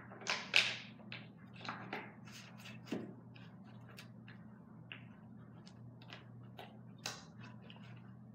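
Hands handling bottles and slime-making things on a table: a quick run of clicks, taps and rustles in the first three seconds, then scattered light clicks. A steady low hum runs underneath.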